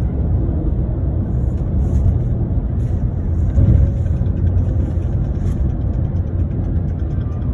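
Steady low rumble of a vehicle running, even in level throughout.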